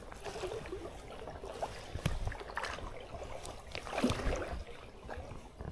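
Water sloshing and splashing around someone wading in a shallow stream, with a few sharp knocks, the loudest about two and four seconds in.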